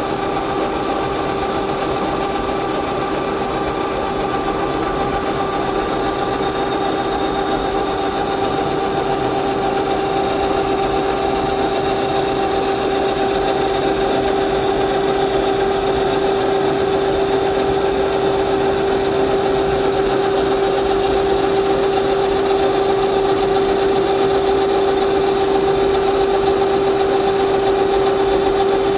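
Metalworking machine running with a steady pitched hum, slowly getting a little louder.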